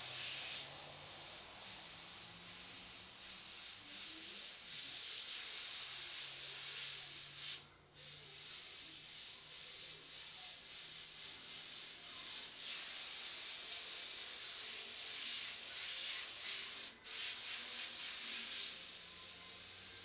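Airbrush spraying paint with a steady hiss, which stops briefly twice.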